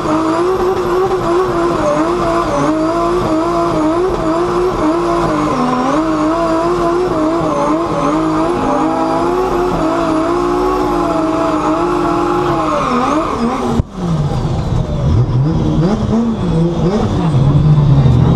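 Drift car's Toyota 2JZ straight-six engine revving up and down over and over as it is held in a slide, with tyre squeal. About 14 seconds in the sound breaks off abruptly and a lower, rougher engine sound takes over.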